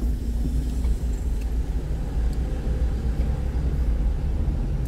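Car engine and road noise heard from inside the cabin while driving slowly: a steady low rumble.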